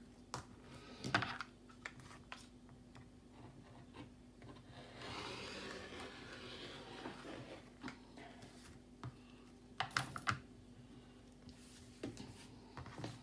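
Light clicks and taps of sewing tools and fabric being handled on a work table, with a rustling, rubbing stretch midway, over a faint steady hum.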